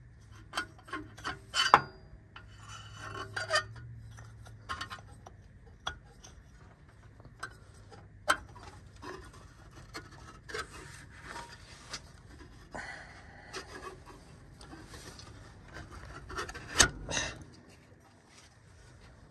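Hands fitting a fuel line's quick-connect coupling onto a new in-line fuel filter under a 1996 Ford Ranger: scattered clicks, knocks and rubbing of metal and plastic parts. There are two louder clicks, about two seconds in and near the end.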